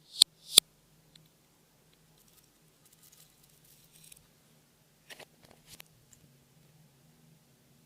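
Slime being squeezed and stretched by hand, with two sharp pops near the start and quieter sticky crackles about five seconds in.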